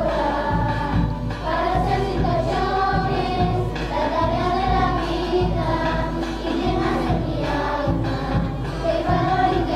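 A school choir of young voices singing a Spanish song together in held, flowing melodic lines.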